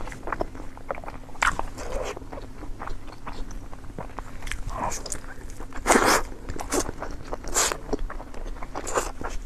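A person eating close to the microphone, biting and chewing with many short wet smacks and clicks. There are a few louder bites about six and seven and a half seconds in.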